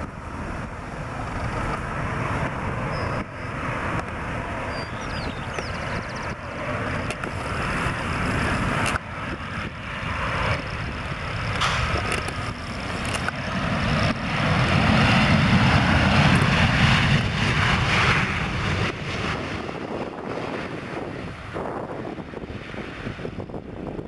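Boeing 737-700's CFM56-7B jet engines on a landing: a steady jet rumble on final approach that grows louder as the airliner nears and touches down. A few seconds after touchdown the engine noise swells to its loudest, then dies away during the rollout.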